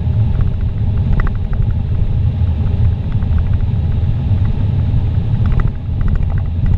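Car driving at speed on a paved highway, heard from inside the cabin: a steady, loud, low rumble of road and wind noise with the engine underneath.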